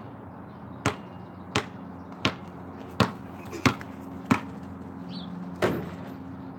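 Basketball being dribbled on a concrete driveway: sharp, evenly spaced bounces about every 0.7 seconds, with one last bounce after a short gap near the end. A steady low hum runs underneath.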